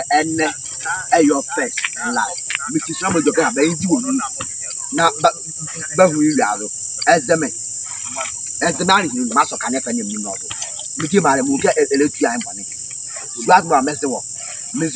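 Crickets chirping in a steady, high-pitched chorus that runs unbroken under the talk.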